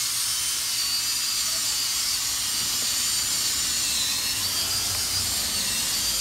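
Cordless drill with a paddle mixing bit running steadily, stirring a barrel of liquid clay slip. A high motor whine that wavers a little in pitch.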